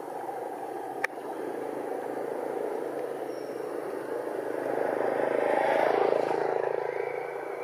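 A motor vehicle's engine running steadily and passing by, growing louder to a peak about six seconds in and then fading, with a single sharp click about a second in.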